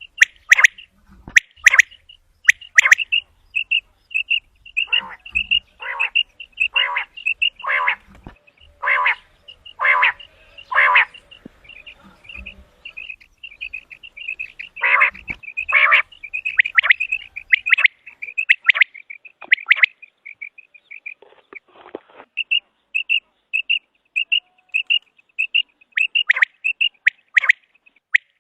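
Common quail calling: a rapid run of short, high notes, broken in places by louder, harsher calls about once a second.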